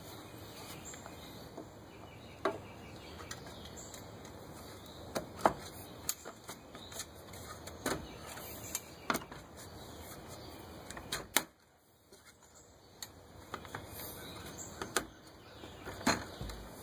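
Scattered light knocks and taps of a white-painted poplar battery box being handled and fitted into the main triangle of an aluminium mountain-bike frame, over a steady low hiss.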